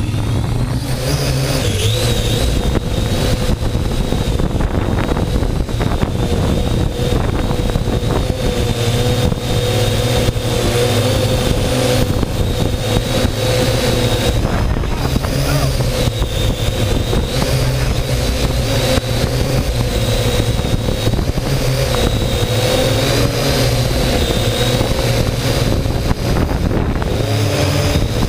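Drone's electric motors and propellers whining steadily at close range, the pitch wavering slightly as the throttle changes, over a low wind rumble on the microphone.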